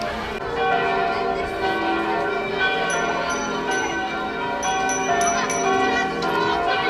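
Music of held, bell-like tones moving from note to note, with a light ticking beat about three times a second in the middle.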